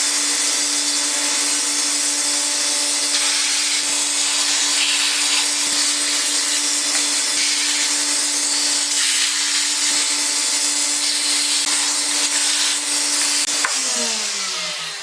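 A high-speed electric motor runs steadily with a loud hiss and a constant hum, then is switched off near the end and winds down, its pitch falling.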